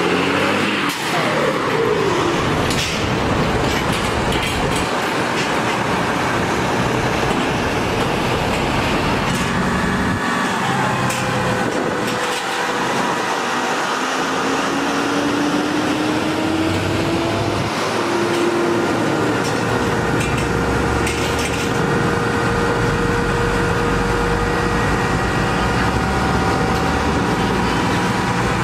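Heavy diesel engines of trucks and a truck-mounted crane running at the roadside, with a whine that slowly rises midway and then drops away.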